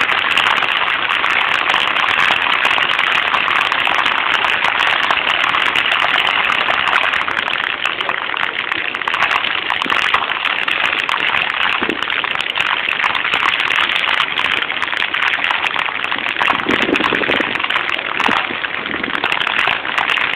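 Water jets of an illuminated plaza fountain spraying and splashing down onto the basin: a steady hiss of falling water, easing slightly about eight seconds in as the jets drop lower.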